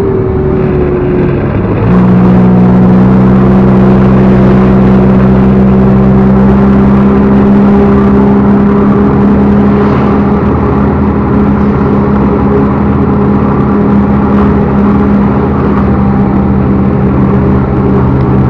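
Backhoe loader's diesel engine running steadily; about two seconds in it revs up and holds at the higher speed.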